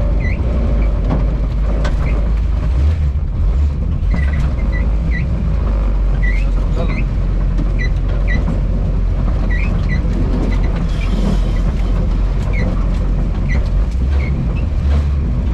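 Lada Niva on the move: engine and drivetrain running steadily with a heavy low rumble. Short high-pitched squeaks recur irregularly, roughly every half second to second.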